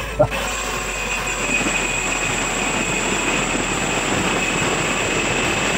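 Angle grinder fitted with a tile-cutting disc, tied to the end of a pipe and lowered down a hole in the floor, cutting through steel reinforcing rods: a steady high whine over grinding noise, starting just after the beginning.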